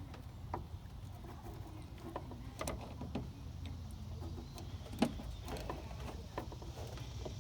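Scattered light clicks and taps of a downstreamer injector's fittings being handled and unscrewed by hand, over a low steady hum.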